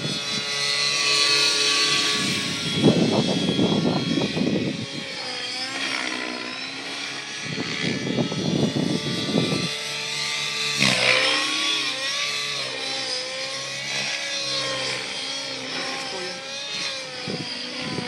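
Radio-controlled model aircraft engine whining in flight, its pitch rising and falling as it manoeuvres and passes. Wind buffets the microphone twice, about three and eight seconds in.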